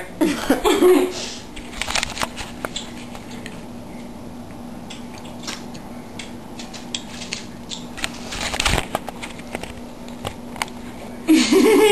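Handling noise from a handheld camera being moved about: light clicks and rustles over a steady hum, with one louder thump about eight and a half seconds in. A girl's voice sounds briefly at the start and again near the end.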